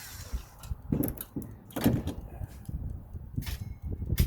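Irregular knocks and clunks of metal and tools being handled while working on a rusty doghouse heater, about five sharp hits spread unevenly across the few seconds.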